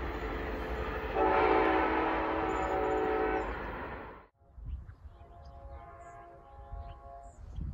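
Approaching train rumbling, then its horn sounds one long chord of several notes about a second in, held for about two seconds before fading. After a sudden cut, a distant train horn sounds faintly.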